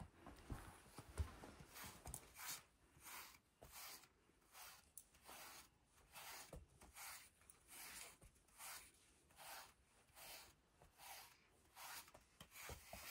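Faint brushing of a cat's fur with a handheld grooming brush: quick, regular strokes at about two a second.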